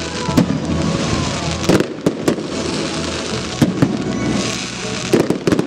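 Fireworks going off: a series of sharp bangs, several close together, over a continuous crackle of bursting shells, with a faint falling whistle about a second in.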